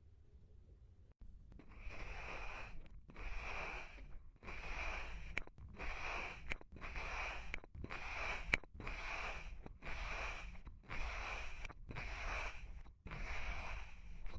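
Clay being worked in repeated rasping strokes, about eleven of them, each just under a second long and roughly one a second, starting about two seconds in.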